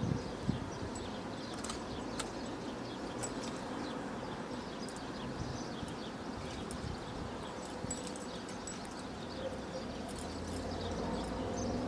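Open-air ambience: a steady background rush with faint, scattered high chirps and two sharp clicks about half a second apart at the start. A low rumble builds near the end.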